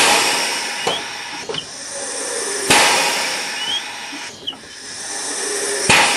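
Air-operated bead breaker on an old tire-changing machine cycling. Compressed air hisses and builds, then blasts out sharply three times about three seconds apart, with small metal clicks between.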